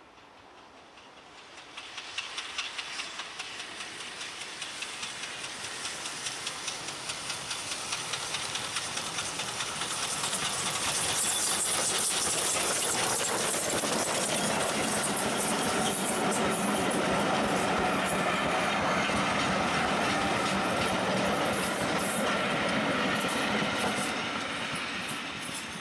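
GWR 4575 class steam tank locomotive 5541 approaching and passing with its coaches. Regular exhaust beats grow louder from about two seconds in, with a hiss of steam as the engine goes by. Then the coach wheels clatter over the rail joints, fading near the end.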